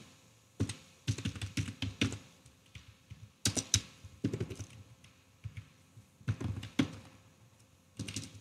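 Computer keyboard typing in short irregular bursts of keystrokes, with brief pauses between the bursts.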